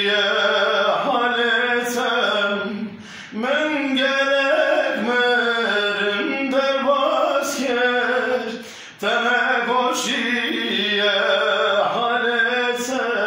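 A man singing a Kurdish song a cappella, in long held notes that waver and bend in pitch. He breaks briefly for breath about 3 seconds and 9 seconds in.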